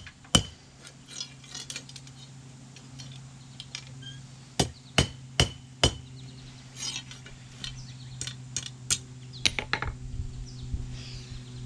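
Hand hammer striking a steel hay-rake tine on an anvil, bending the tip round the horn into a loop. The blows come in groups: a single blow, then four evenly spaced, then lighter clinks and a further run of blows, over a steady low hum.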